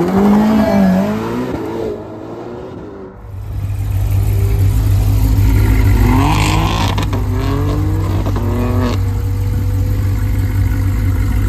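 Car engine revving and accelerating, its pitch rising and falling over the first two seconds. A deep steady drone sets in about three seconds in, and the revs climb several times between about six and nine seconds.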